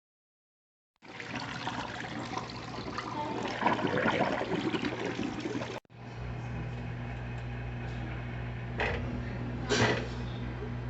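Water rushing into an Electrolux LAC12 washing machine's tub. After a sudden break about six seconds in, a steady low hum takes over, with a couple of short, sharp sounds near the end.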